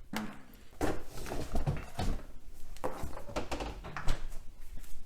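Kitchen handling noise: irregular knocks and clatter of a bowl and utensils being moved about, with a door being opened and shut.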